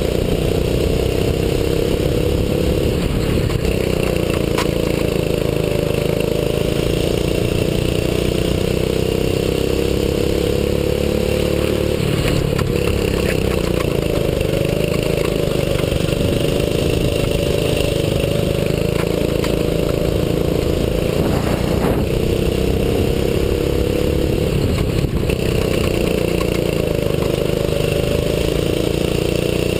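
6.5 hp kart engine heard close up from a camera on the kart, running hard throughout a lap. Its pitch climbs slowly along the straights and drops sharply several times as the kart slows for corners.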